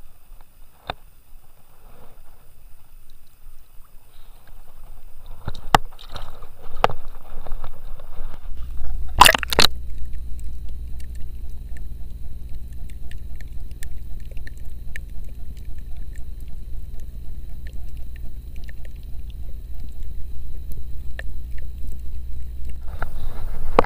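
Faint water sloshing and a few clicks as a small grouper is let go by hand in shallow water. About nine seconds in there is a loud short splash-like burst, then the steady low rumble of a camera under water with scattered faint clicks.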